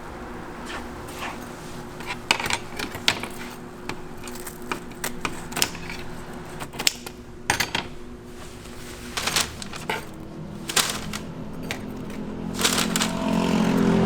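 Irregular sharp clicks, taps and light clatter of food being handled and packed at a toast stall, over the steady hum of kitchen equipment.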